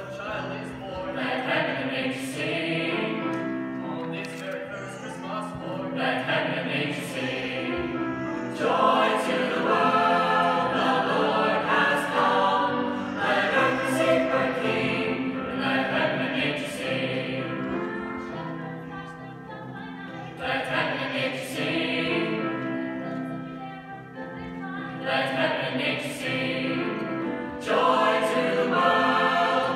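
High school choir singing with accompaniment, in phrases that swell and fade; the sound grows louder about nine seconds in and again near the end.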